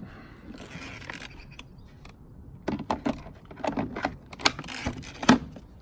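Plastic clicks, knocks and rattles of an 18V Ryobi One+ battery being handled and fitted into the battery lawn mower, with one sharp click near the end.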